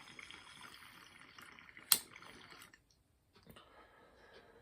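Water bubbling in the base of a tall straight-tube glass bong as smoke is drawn through it, with a sharp click about two seconds in. The bubbling breaks off briefly and resumes more faintly.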